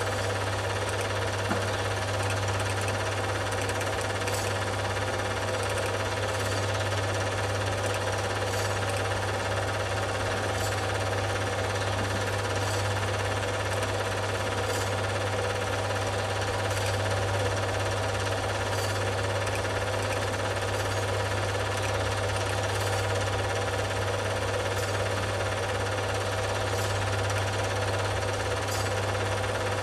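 Film projector running: a steady, fast mechanical clatter over a low hum, with a faint tick about every two seconds.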